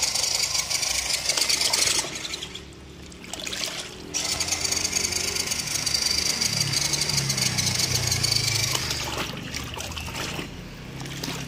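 RC Land Rover D90 scale crawler's electric motor and drivetrain whirring as its wheels spin in a tub of water, churning and splashing the water. The running stops about two seconds in and starts again about two seconds later.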